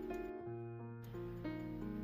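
Background music: sustained instrumental notes moving from pitch to pitch.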